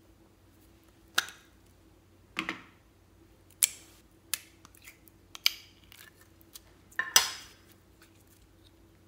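A small plastic slime tub being handled and opened, giving about six sharp plastic clicks and short crackles spread over several seconds. Near the end the slime is squeezed and pulled from the tub, making a longer wet squelch.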